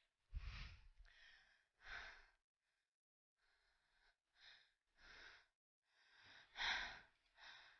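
A person's faint, heavy breathing: about six breathy puffs and sighs, the strongest about half a second in and near the end.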